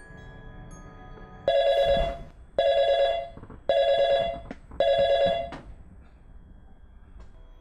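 White push-button desk telephone ringing: four short electronic rings, each well under a second, a little over a second apart, starting about a second and a half in.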